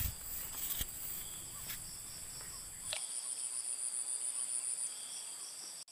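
Insect chorus in a steady high-pitched drone, joined about halfway through by a rapidly pulsing insect call, several pulses a second. A few faint knocks come in the first half.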